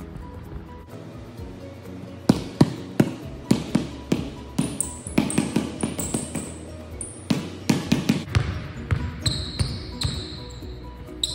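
Basketball dribbled hard on a hardwood gym floor. Sharp, irregular bounces start about two seconds in and come several a second, with a few high sneaker squeaks on the floor. Background music plays throughout.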